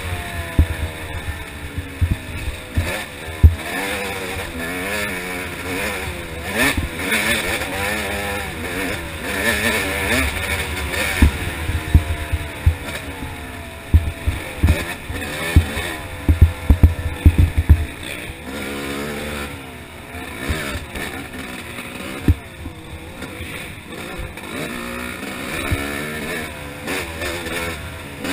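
Yamaha YZ250 single-cylinder two-stroke dirt bike engine revving up and down again and again as it is ridden hard along a rough trail. Short low thumps come through the helmet-mounted camera, many of them clustered about two thirds of the way in.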